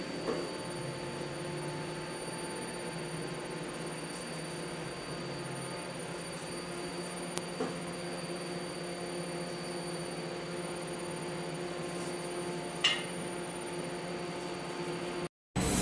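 Steady hum of bakery machinery holding several constant tones, with a few faint clicks and a sharper clink about thirteen seconds in. The sound drops out briefly just before the end.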